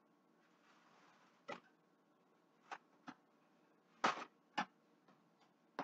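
A few sharp knocks and clicks of things being handled on a kitchen counter, spaced unevenly, with the loudest knock about four seconds in.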